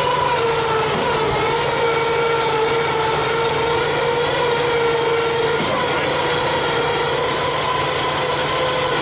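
A steady mechanical whine with a slightly wavering pitch, over a low hum.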